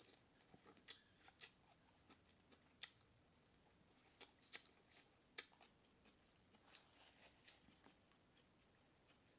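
Crab leg and claw shells being cracked and snapped apart by hand: a string of sharp, irregular little cracks and clicks.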